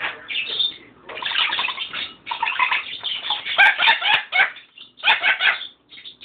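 A pet bird bathing in a water bowl, beating her wings and splashing in several noisy bursts of a second or two each.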